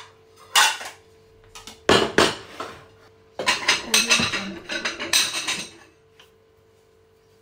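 Kitchen clatter: dishes, pots and cutlery knocking and rattling in short bursts, with a dense stretch of clinking from about three and a half to six seconds in, then only a faint steady hum.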